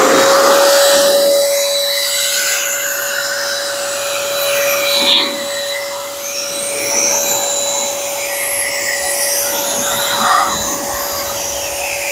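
BigBoi BlowR Buddi handheld car dryer running at full speed, a steady motor whine over a loud rush of air as it blasts water off a wet car hood. The air noise swells and dips a little as the nozzle moves over the surface.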